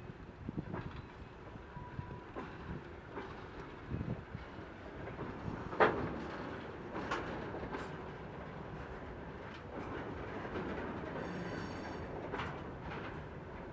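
A ChME3 diesel shunting locomotive and its works train rolling slowly, with a steady rumble and irregular clacks as the wheels pass over rail joints and points. The loudest clack comes about six seconds in.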